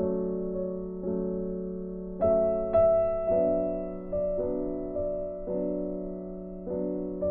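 Background piano music: slow, gentle notes, each struck and then fading away.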